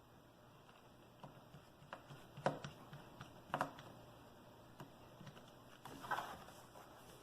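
Faint scattered clicks and taps of small laptop parts being handled and fitted during screen reassembly, with a short scrape about six seconds in.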